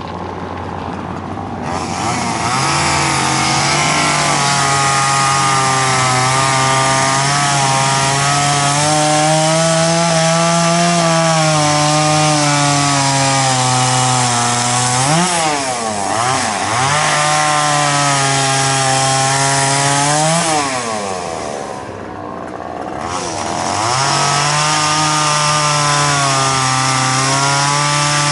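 Gas chainsaw carving wood, running at high speed under load. It revs up about two seconds in, then twice drops off and revs back up, briefly around the middle and for a longer dip after about twenty seconds.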